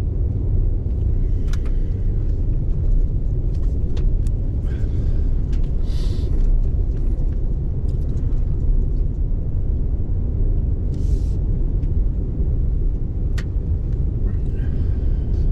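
Pickup truck's engine and tyres running steadily on a snowy road, heard from inside the cab, with a dense low rumble and scattered small clicks and rattles.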